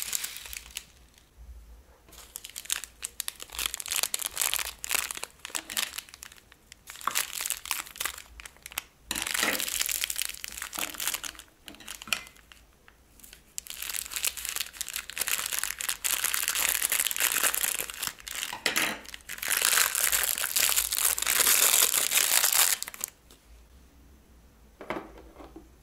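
Plastic piping bags crinkling and crackling as they are handled, in irregular stretches with short pauses.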